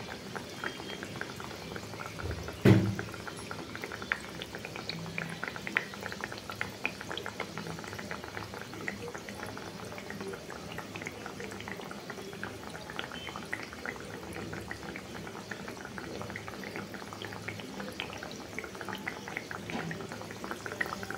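Malpua batter deep-frying in hot oil in a kadai: a steady bubbling sizzle with many small crackles. One loud thump comes about two and a half seconds in.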